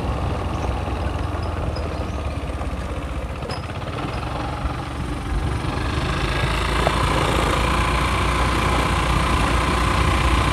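Motorbike engine running under way, with wind rumbling on the microphone. About halfway through the engine gets louder and a steady whine comes in as the bike picks up speed.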